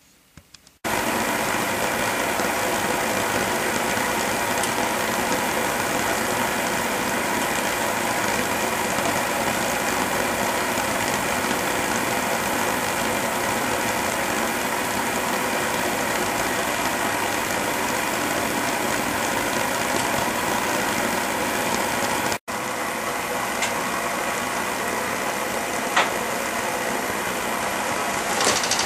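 Propane flame-impingement burner running with a steady rushing noise as it heats a Stirling engine's heater head dome toward red heat. It starts suddenly about a second in, breaks off briefly about three-quarters of the way through, then carries on with a single sharp click near the end.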